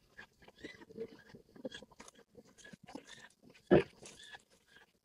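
Long stainless-steel ladle clicking and scraping against a stainless stockpot as foam is skimmed off boiling broth, with one louder knock a little before four seconds in.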